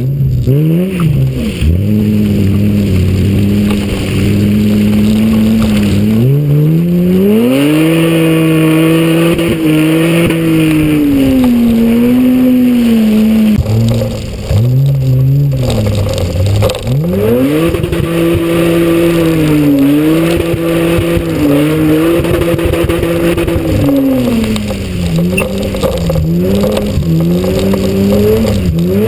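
Mitsubishi Magna's engine being driven hard through a muddy gymkhana course, its revs climbing and falling again and again through corners and gear changes, heard from a camera mounted on the car's roof.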